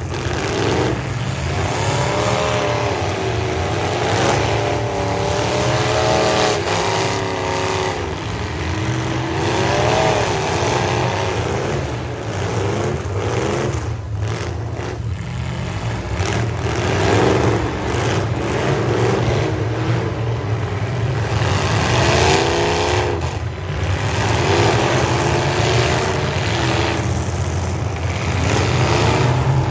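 Several demolition derby trucks' engines revving hard again and again, their pitch climbing and dropping with each burst of throttle over a steady low rumble.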